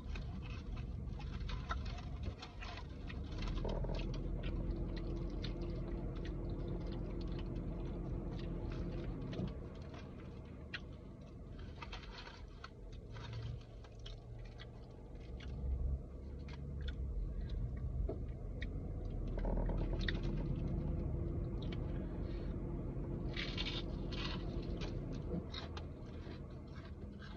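Close-up chewing and mouth sounds from eating a fast-food burger: many small wet clicks and crackles, over a low steady hum. A steady tone joins in for several seconds twice.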